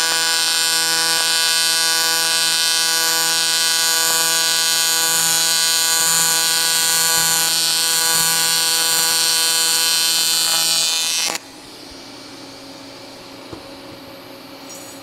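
AC TIG welding arc on aluminium, a loud steady buzz at the machine's 160 Hz AC frequency, as a 6061 aluminium bung is welded onto a cast aluminium intercooler. The arc cuts off suddenly about eleven seconds in, leaving a faint hum.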